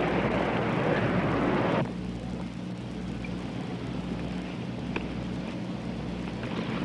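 Steady loud background noise that cuts off abruptly about two seconds in, leaving quieter noise over a steady low electrical hum.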